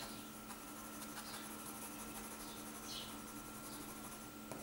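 Pencil scratching on sketch paper in a few faint, short hatching strokes as the foliage of a tree is shaded in.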